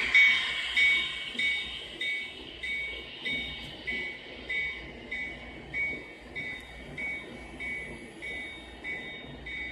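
Electronic bell on a model railroad ringing steadily, about one and a half dings a second, slowly fading, over the faint low rumble of a running model train.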